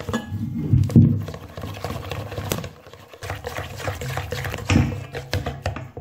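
Hand whisk beating a wet, lumpy dough in a metal bowl: an uneven wet stirring sound with irregular clicks of the whisk against the bowl.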